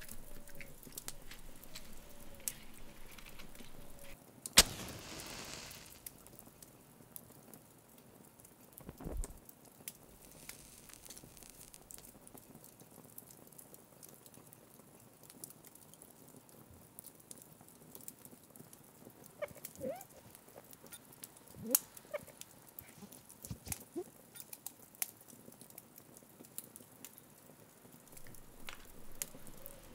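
A cigarette being lit: a sharp strike about four and a half seconds in, then about a second and a half of flaring hiss. Faint small clicks and soft knocks come and go around it, with a dull thud about nine seconds in.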